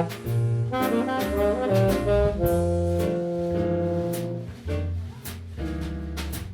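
Background music: jazz with saxophone and brass carrying held melody notes over a steady beat.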